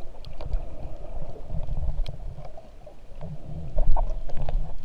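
Muffled underwater sound picked up through an action camera's waterproof housing: low rumbling swishes of water moving around the camera as the snorkeler swims, with scattered small clicks. The strongest swell comes about four seconds in.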